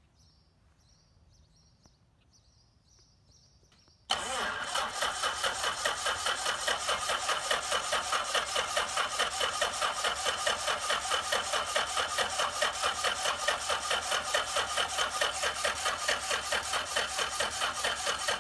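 Electric starter cranking the RV-6A's piston aircraft engine, kicking in abruptly about four seconds in with an even chug of about five pulses a second and no rise in speed. The engine is not catching, because the electric fuel pump is giving no fuel pressure.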